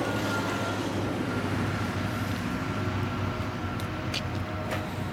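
Steady low rumble of motor traffic or a running engine in the background, with a faint high steady whine. A few light clicks come near the end.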